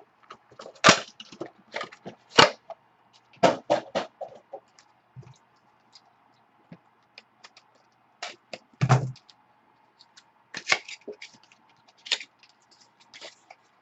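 Packaging of a Spectra football card box being opened and handled by hand: irregular sharp cracks and crinkles of cardboard and wrapper, with a dull thump about nine seconds in. A faint steady hum runs underneath.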